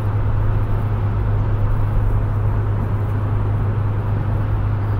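Steady road noise heard from inside a car's cabin while driving through a road tunnel: a constant low drone from tyres and engine under an even hiss.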